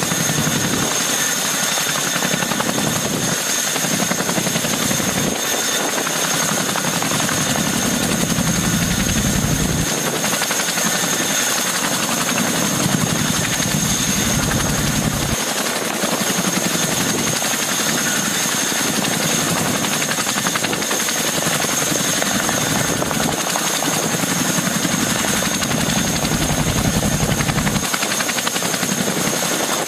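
CH-47 Chinook tandem-rotor helicopter running on the ground with both rotors turning: a constant rushing noise from the rotors and twin turbine engines, with a steady high whine over it and the low rotor sound swelling and fading every few seconds.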